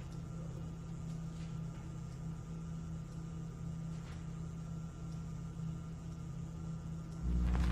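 Steady low electrical hum over faint hiss, with a few faint ticks. Near the end it gives way to a louder, deeper hum.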